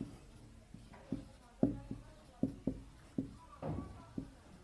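Writing on a board: a quick series of short taps and light scrapes as each stroke is made, about two or three a second.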